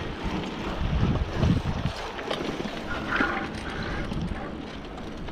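Wind buffeting the microphone while a bicycle rides along a paved path, with a low, uneven rumble of gusts and rolling tyres.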